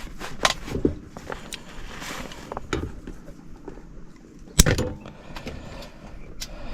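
Scattered clicks and knocks of hand tools and wire being handled at an HVAC zone control board, with one sharp, loud snap about four and a half seconds in.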